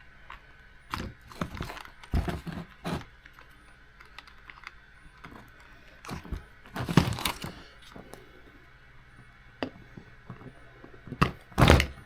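Small RC car parts and tools being handled on a workbench: scattered clicks, taps and knocks, the loudest about seven seconds in and again just before the end.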